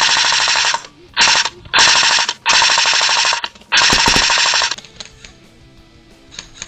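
CYMA M4 airsoft electric rifle firing on full auto in five rapid bursts of under half a second to about a second each, then it stops.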